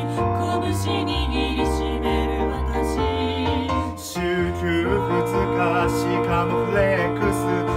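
Mixed-voice trio, two women and a man, singing a pop song in close harmony over a sustained low bass line that moves to a new note about four seconds in.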